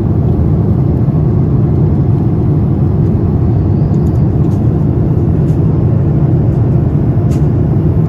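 Steady, loud low roar inside the cabin of a Boeing 787 Dreamliner with GEnx-1B engines: engine and airflow noise heard from a rear window seat.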